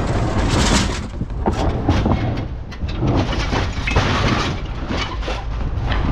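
Scrap metal clanking, scraping and crashing as a heavy piece is rolled and shifted, with irregular sharp strikes over a steady low engine rumble.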